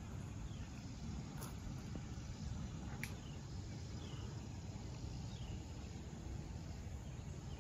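Outdoor ambience: a steady low rumble with a few short, falling bird chirps and two brief clicks.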